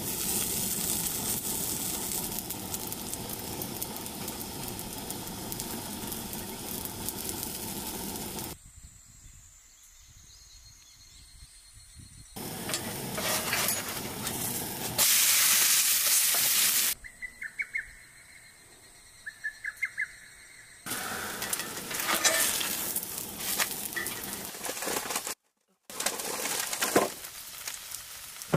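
Okonomiyaki frying in a cast-iron skillet: a steady sizzle, with a louder stretch of hiss about halfway through and small clicks of a utensil against the pan. In the quieter gaps between the cooking sounds, birds chirp.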